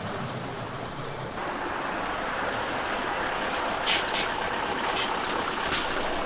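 Coach bus pulling in to the stop, its engine noise growing louder as it nears. In the second half there are several short, sharp hisses of air from its air brakes.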